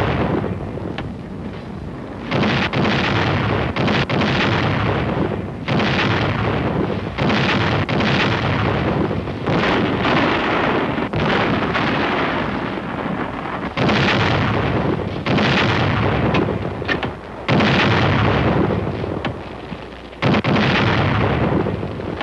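Artillery barrage from field howitzers: a rapid series of heavy blasts, one every second or two, each dying away before the next.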